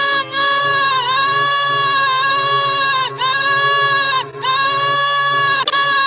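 Pingu's 'noot' honk stretched into long held notes, about four in a row, each sagging in pitch or cutting out briefly before the next, over a steady low buzz.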